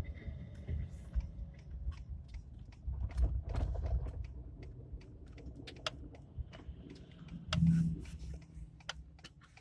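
Low truck engine and drivetrain rumble rising and falling inside a pickup's cab, with many small clicks and rattles scattered through it, louder for a moment about eight seconds in.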